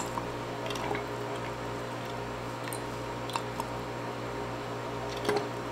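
A few faint squishes and small clicks as a pipette draws fragrance oil and drips it into a glass beaker of liquid soap, over a steady low hum.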